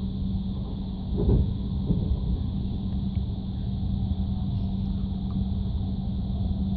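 TGV high-speed train running at speed, heard inside the passenger car: a steady low rumble with a constant hum. A brief louder rush comes about a second in.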